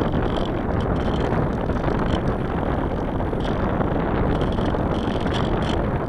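Steady rush of wind on the microphone in flight aboard a light aircraft, mixed with the aircraft's engine noise.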